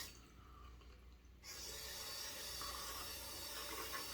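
Tap water running into a sink. It stops briefly near the start and runs again from about a second and a half in, a steady hiss.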